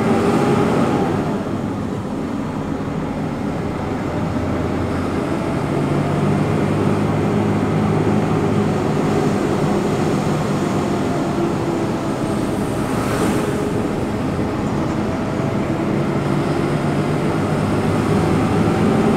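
Truck engine running as heard inside the cab while driving, its pitch shifting with speed and gear changes and rising near the end. A brief hiss about thirteen seconds in.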